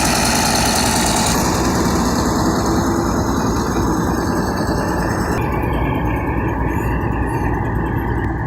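A heavy machine's engine running steadily. A hiss above it drops away about a second and a half in, and again about five seconds in, leaving a steady whine.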